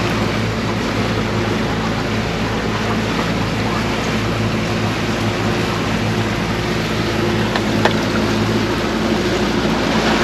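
Boat engine running steadily under way, a constant hum over the rush of wind and water.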